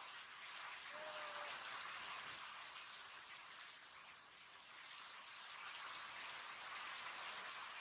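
Heavy rain pouring steadily onto wet ground. A short high tone sounds about a second in.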